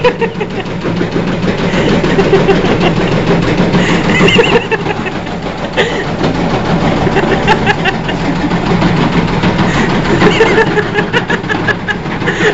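Washing machine spinning hard and shaking on the floor, a steady low hum under constant rattling and knocking, the typical sign of an unbalanced load in the spin cycle.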